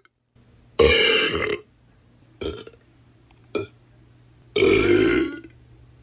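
A person burping four times in a row: a long loud burp about a second in, two short quick burps in the middle, then another long loud burp near the end.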